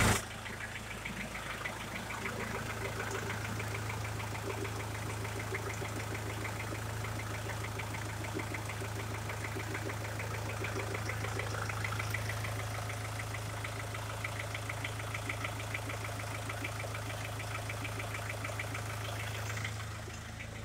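2005 Mercedes-Benz Vito's 2.1-litre four-cylinder turbo diesel idling steadily, with a fast, even diesel clatter.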